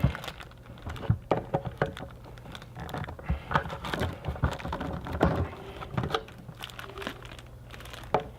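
Plastic packaging crinkling and irregular knocks and clicks of plastic parts being handled as the shop vacuum's caster wheels and accessories are unpacked, over a faint steady low hum.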